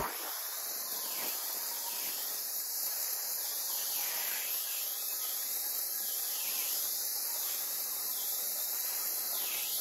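Dry ice blasting machine spraying a car's floor carpet: a steady, high hiss of compressed air and dry ice pellets from the nozzle.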